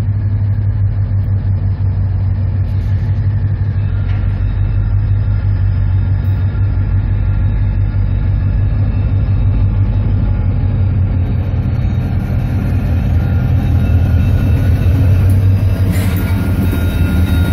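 Diesel locomotives of a CN freight train approaching and passing close by: a loud, steady deep engine rumble that grows a little louder as they near, with a hissing wheel-and-rail noise building in the last few seconds as the locomotives go past.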